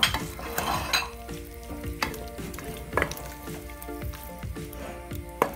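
A wooden spoon stirring sautéing onion and tomato in a metal pot, with the food sizzling and the spoon knocking against the pot several times, roughly once a second.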